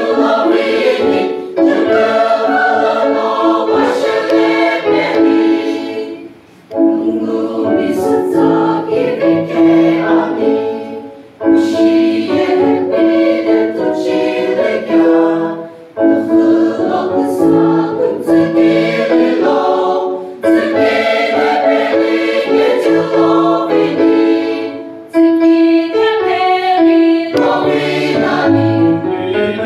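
Women's choir singing a hymn in parts, in phrases of about four to five seconds with short breaks between them.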